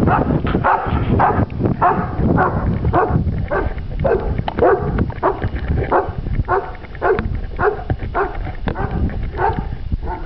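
German Shepherd barking repeatedly in an even rhythm, about two barks a second.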